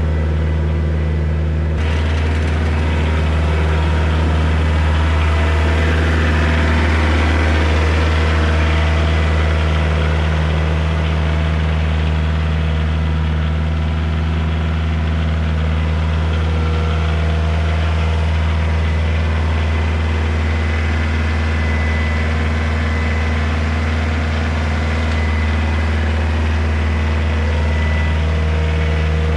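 Tractor engine running steadily while driving, a constant low drone with a little more rattle and hiss joining about two seconds in.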